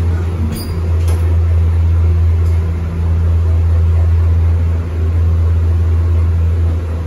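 A steady low drone of a running vehicle engine.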